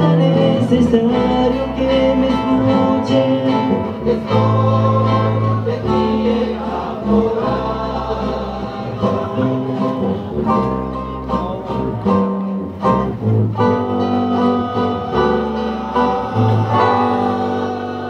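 Rondalla performing live: many men singing together in chorus over strummed and plucked acoustic guitars with sustained bass notes, growing somewhat softer toward the end.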